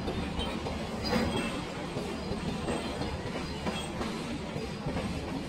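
Puffing Billy steam train running, a steady rumble of its wheels on the rails.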